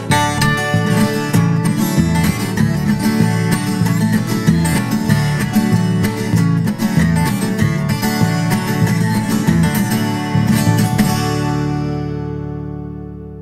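Viola caipira playing the closing instrumental of a hymn in quick plucked notes, then a final chord ringing out and fading near the end.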